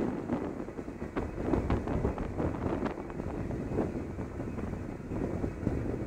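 Wind buffeting the microphone in uneven gusts over a steady rush of wind and sea, on the open deck of a ship under way.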